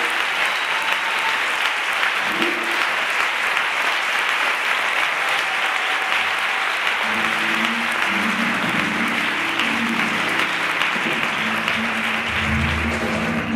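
Audience applauding steadily. From about halfway through, low instrumental music starts up underneath and grows stronger near the end.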